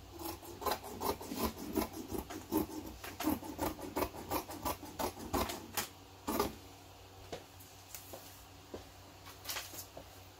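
Dressmaking shears cutting across fabric in a quick, even run of snips, about three a second, for some six seconds, ending with a louder final cut; after that only a few light ticks.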